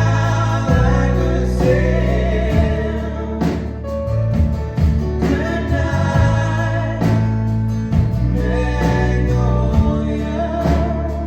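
Live band music with a singer's voice over the instruments and held low bass notes.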